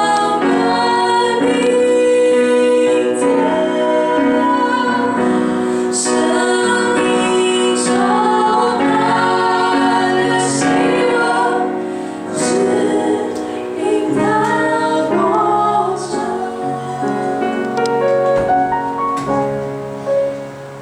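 Music with singing, mostly a female voice with some choir-like voices, over a piano accompaniment; held notes that change in steps.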